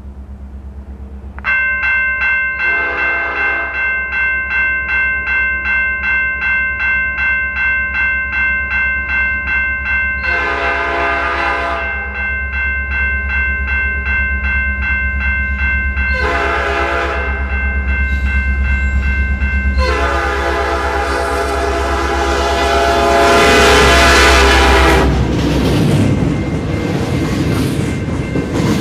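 A level crossing bell starts ringing about a second and a half in, pulsing about twice a second. Over it, a CN SD70M-2 diesel locomotive's Nathan P5 air horn sounds the grade-crossing signal: long, long, short, then a long blast held about five seconds. The locomotive's low engine rumble builds beneath, and once the horn stops the train passes the crossing with wheel and rail noise.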